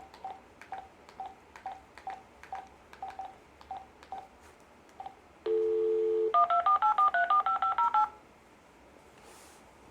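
Telephone number being redialled: about a dozen short beeps with clicks as the digits are keyed in, then a brief dial tone, then a fast run of DTMF touch tones as the VoIP line sends the number out.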